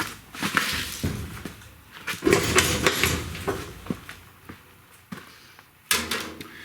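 Irregular scraping strokes and short knocks from hand work, busiest in the first few seconds and sparser after.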